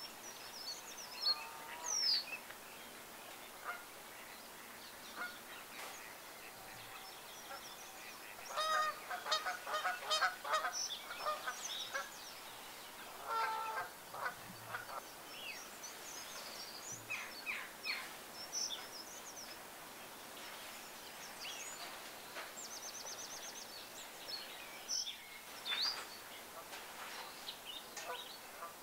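Wild birds calling: a quick series of deeper repeated calls about a third of the way in and again near halfway, among scattered short, thin, high-pitched calls and chirps.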